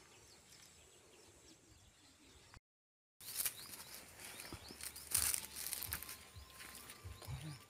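Open-air field ambience with a small bird chirping over and over, short falling chirps a few times a second, cut off briefly by a moment of silence about three seconds in. Scattered rustling handling noise, loudest a little past the middle.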